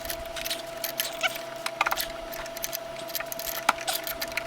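Scattered light metallic clicks and rattles of parts and tools being handled while fitting a sway bar link to its bracket, over a thin steady tone.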